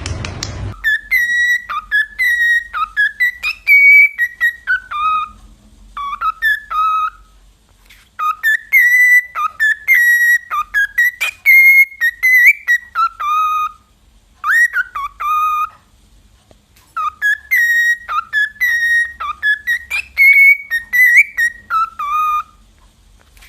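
Pet bird whistling: four phrases of short, clear whistled notes, each phrase dropping to lower notes at its end, with brief pauses between.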